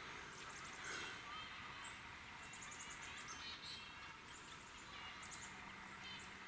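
Chickadees calling faintly: small clusters of quick, high, thin notes repeating every second or so over the low hush of the woods.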